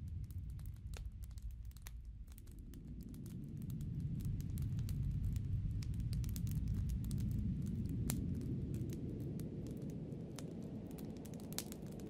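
Low wind rumble in a snowstorm, swelling about four seconds in and easing off near the end, with scattered sharp crackles over it.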